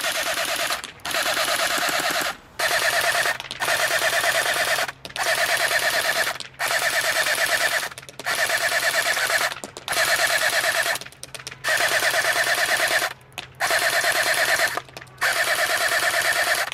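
Echo 1 M14 Socom electric airsoft rifle firing on full auto in about ten short bursts of a second or so each, its gearbox cycling rapidly with short pauses between bursts. The gearbox sounds clean and snappy, with no winding or grinding noises.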